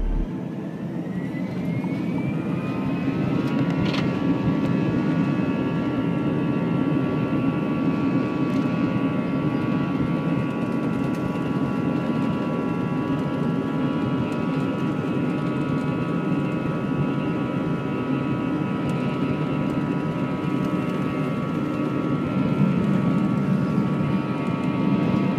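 Airliner jet engines heard from inside the cabin during the takeoff run: a whine rises over the first few seconds, then holds steady over a constant low engine rush.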